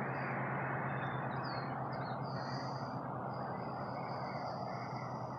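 Steady outdoor background rush with a low hum, under a few short bird calls and a thin, high trill that holds through the second half.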